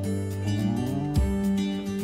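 Instrumental background music with held, pitched notes.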